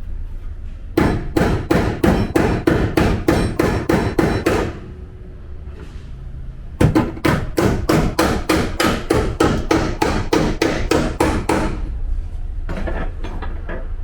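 Bodywork hammer striking the steel body panel of a Toyota Sienta in rapid, even blows, about four a second, hammering out collision damage. Two runs of blows, with a pause of about two seconds between them and a few lighter taps near the end.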